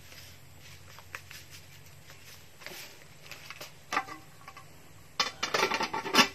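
Metal clinks and clatter of a ladle and lid against a cooking pot, in a quick loud run near the end, after a few light ticks and crinkles and a single clack about four seconds in.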